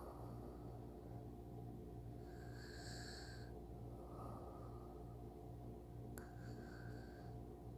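A person breathing slowly and softly as if asleep, a gentle sleep snore. Two drawn-out hissing breaths come about two and a half seconds in and again near the end, over a steady low hum, with one small click shortly after the middle.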